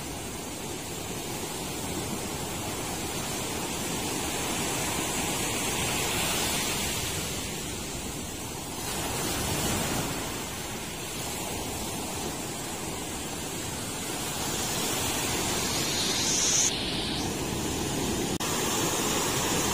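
Sea surf breaking and washing on the shore with wind across the microphone, a steady rushing that swells and eases a few times.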